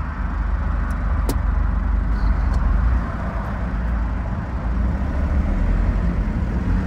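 Truck engine running steadily as the truck pulls away in a low gear, getting a little louder in the first second, with a few short sharp clicks about one to two seconds in.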